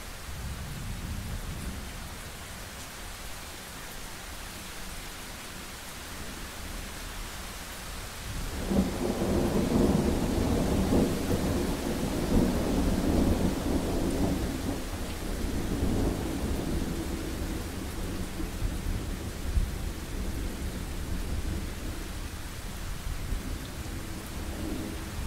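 Thunderstorm: steady rain hiss with a long, heavy roll of thunder that starts about a third of the way in, rumbles for several seconds and slowly fades, and a fainter rumble near the end.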